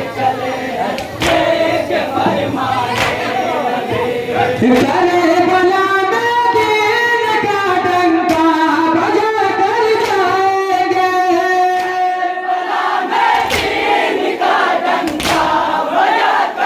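A group of men chanting a nauha (Muharram lament) together, with sharp slaps of hands on bare chests (matam) every couple of seconds, clearest near the start and end.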